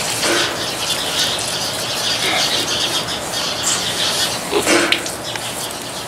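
A sow and her piglets grunting and squealing, with many short high-pitched piglet squeals over the grunts and a louder squeal a little before the end.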